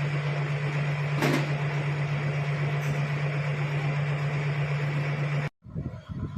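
A steady machine hum: a constant low drone over an even hiss, with a single sharp knock about a second in. It cuts off abruptly near the end, giving way to a low, uneven rumble.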